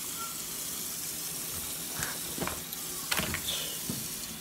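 Kitchen tap running into the sink in a steady hiss while a baby bottle is washed, with a few light knocks and clinks between about two and four seconds in.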